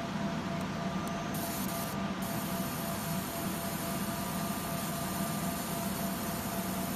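UV laser marking machine running while it engraves a glass tumbler: a steady hiss with a faint, steady high whine.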